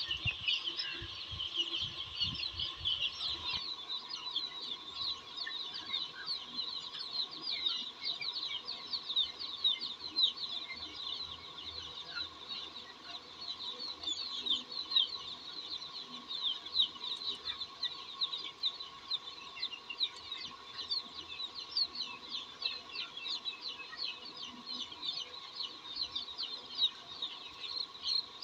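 A large flock of young chicks peeping continuously, many short falling peeps overlapping into a dense chorus.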